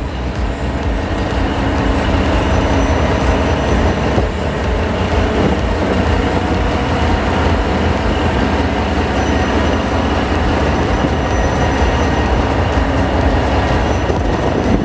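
Vietnam Railways D19E diesel-electric locomotive rolling slowly past close by, its diesel engine running loud with a deep steady rumble. A faint high squeal comes and goes a few times.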